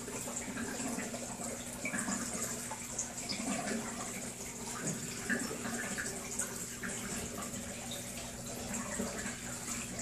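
Aquarium water trickling and splashing steadily, with a faint steady low hum underneath.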